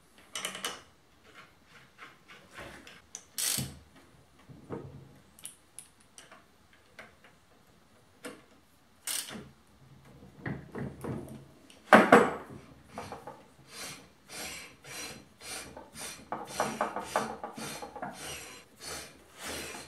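Hand work with tools and metal parts: irregular clicks, knocks and rubbing, with one sharp knock about twelve seconds in and a quick run of clicks through the last few seconds.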